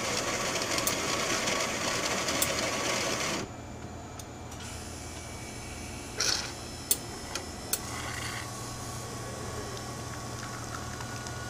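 Super-automatic espresso machine making a shot. Its built-in grinder runs for about three and a half seconds and stops, then comes a short hiss and a few clicks as the brew unit sets. From about eight seconds the pump hums steadily as the espresso starts to pour.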